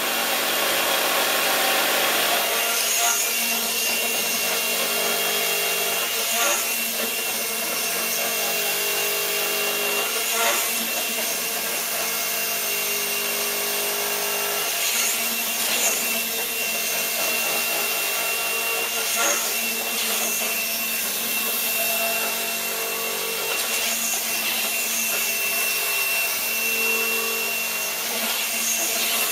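Gyroscopic inertial thruster running with its gyros spinning: a continuous mechanical whir under a steady high whine, swelling briefly every few seconds as the mechanism cycles.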